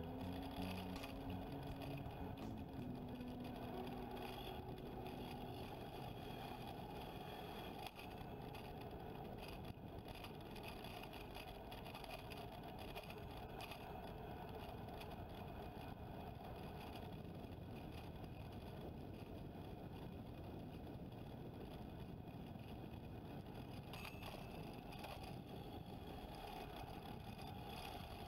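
Steady rushing wind and road noise while riding a mountain bike, with a few faint steady tones dying away in the first few seconds.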